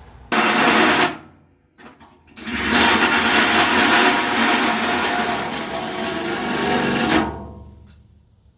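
Handheld power tool motor running in two bursts: a short one of under a second, then a longer one of about five seconds that dies away.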